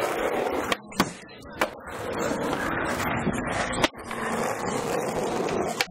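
Skateboard wheels rolling on asphalt, broken by sharp clacks of the board: three within the first two seconds, and a louder one just before the four-second mark.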